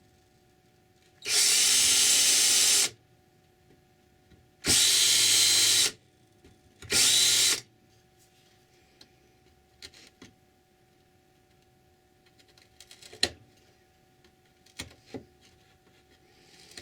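A power tool, likely an electric drill, runs in three short bursts about 1.5, 1.3 and 0.7 seconds long. After them come a few light knocks and taps from handling wood and tools.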